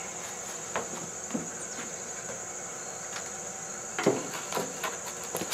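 Steady high-pitched insect chirring, like crickets, with a few scattered knocks and thumps of gear being handled and feet on a van's cargo floor.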